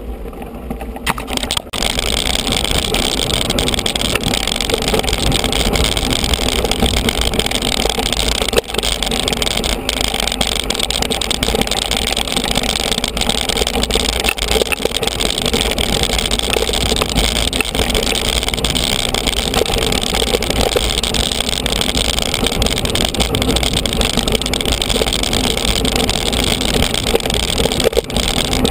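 Steady rush of wind buffeting the camera microphone, mixed with the rumble and rattle of a mountain bike rolling over a dirt trail; it gets louder about two seconds in.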